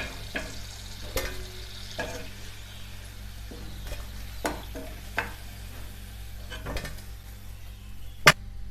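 Hot oil sizzling steadily around wheat-flour and banana fritters as they are lifted out, with scattered clinks of a utensil against the pan. The loudest clink comes near the end, and the sizzling cuts off right after it.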